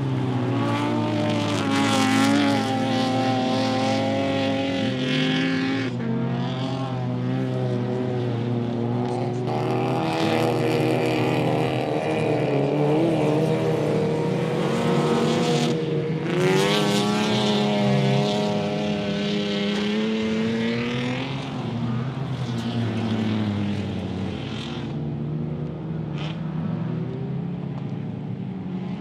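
Several folkrace cars racing on a dirt circuit: more than one engine is heard at once, revving hard and running up and down through the gears as cars pass. Two louder sweeps up in pitch come about a third of the way in and again just past halfway, and the engines fade somewhat near the end.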